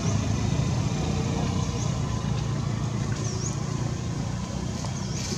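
Steady low rumble of outdoor background noise, with a few faint, brief high chirps scattered through it.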